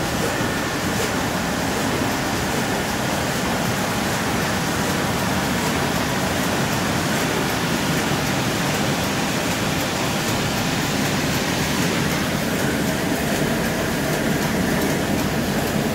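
Industrial sheet-fed thermal laminator line running: Heidelberg feed head, laminating rollers and flying-knife cross cutter, laminating 5 mil PET film on both sides and flush-cutting sheets at about 4600 sheets an hour. It makes a loud, steady mechanical running noise with a fine rapid ticking on top.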